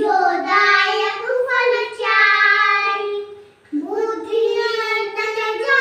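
Young children singing a Hindu devotional prayer in long drawn-out phrases, with a brief pause about three and a half seconds in.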